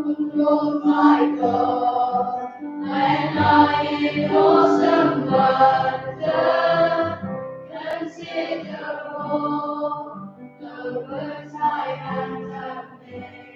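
A school choir of pupils singing in phrases, fuller in the first half and softer in the second.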